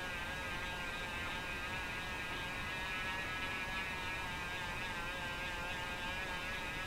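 Handheld rotary tool running at speed with a small wire brush spun inside the threaded nose cone of a tap wrench: a steady high motor whine whose pitch wavers slightly as the brush works. The brush is cleaning gritty, crudely cut internal threads.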